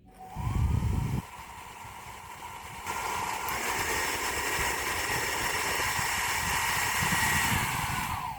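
KRIS 600 W hair dryer switched on, its motor whine rising as it spins up, then stepping up louder and higher-pitched about three seconds in as it goes from the low to the high heat setting. It runs steadily, then winds down with a falling whine as it is switched off near the end. A low rumble accompanies the first second.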